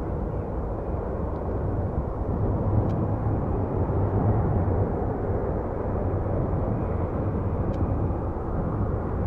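Airport ambience: a steady low rumble of distant jet engines mixed with wind buffeting the microphone, swelling slightly a few seconds in.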